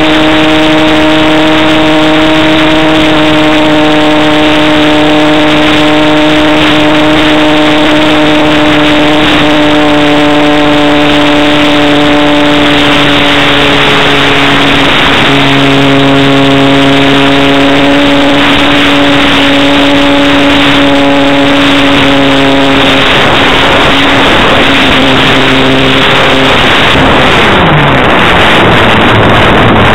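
Motor and propeller of an RC model Cessna running in flight, a loud steady pitched drone under a rush of wind on the microphone. The pitch steps down about halfway through and glides lower near the end.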